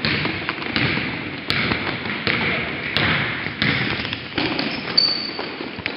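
Basketball players' footfalls and the ball bouncing on a hardwood gym floor: a run of irregular thuds and taps, with a brief high squeak about five seconds in.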